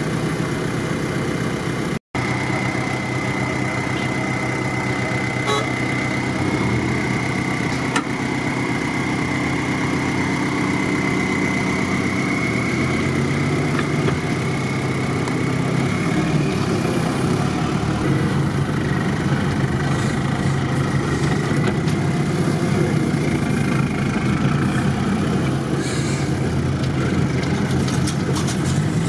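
Off-road 4x4 engines running at low revs, a steady engine hum with a high whine over it. The sound drops out briefly about two seconds in.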